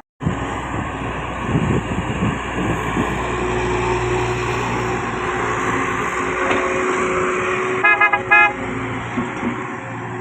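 Heavy diesel earthmoving machinery, a dump truck and bulldozer, running loud and steady, with two short horn toots in quick succession about eight seconds in.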